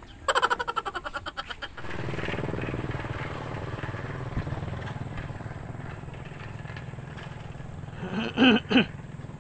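A motorcycle engine running steadily, with a burst of fast pulsing near the start. Two loud, short calls with wavering pitch come near the end.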